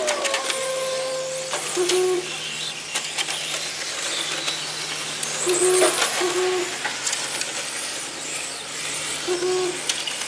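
Electric RC racing cars running on an asphalt track, their motors whining high and rising and falling as they speed up and slow down. Short, low hoot-like tones sound about four times: once near two seconds in, as a close pair around six seconds, and once near the end.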